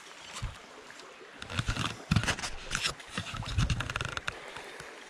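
Shallow stream running over stones, with a cluster of scraping and knocking noises through the middle.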